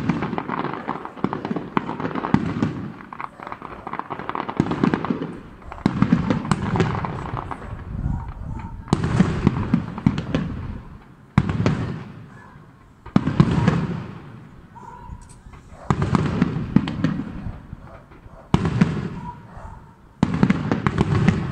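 Aerial fireworks shells bursting, a sharp bang every two seconds or so, each fading away in a rumble with crackle over it.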